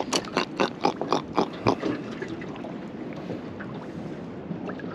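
A freshly landed grunter (javelin fish) grunting in a quick run of about eight short, sharp pulses in under two seconds, then only the low wash of water and wind.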